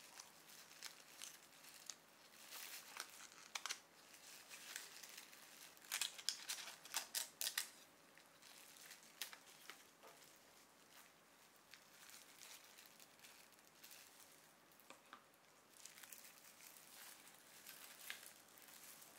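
Thin plastic wrap and disposable plastic gloves crinkling as hands peel protective film off a power adapter and its plug pieces. Faint, in scattered runs of crackles, busiest a few seconds in and again around six to eight seconds in.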